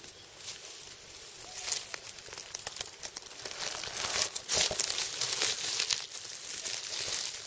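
Dry fallen leaves and grass crackling and rustling as someone shifts and crouches in the leaf litter, thickest about halfway through.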